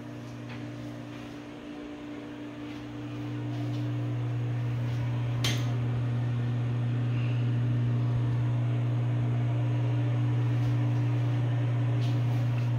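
Steady electric hum of a bathroom exhaust fan motor, growing louder about three seconds in as the tub area is approached. A single sharp click about five and a half seconds in.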